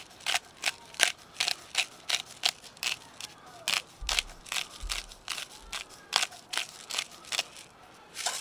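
Hand-held pepper mill grinding peppercorns over steaks: a steady run of crunching clicks, about three a second.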